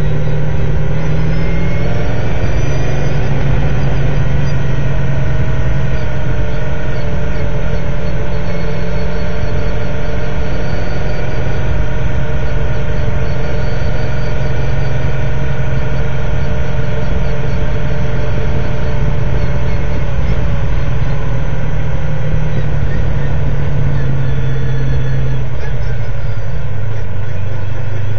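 S5000 open-wheeler's 5.0-litre Ford V8, heard from the onboard camera, running steadily at low revs in first gear as the car rolls at pit-lane speed. Near the end the engine note drops as the car slows.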